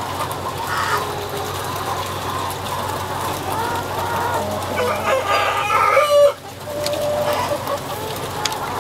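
A flock of broiler breeder chickens clucking and calling over one another, over a steady low hum. The loudest calls come just before six seconds in, followed by a sudden brief drop in level.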